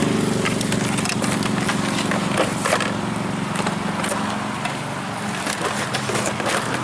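Scattered clicks and knocks of things being handled, over a steady low engine-like hum.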